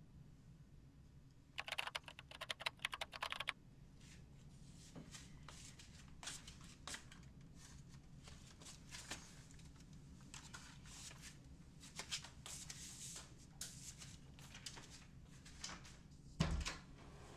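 A quick burst of computer keyboard typing about two seconds in, then faint scattered ticks and rustles, and a dull thump near the end.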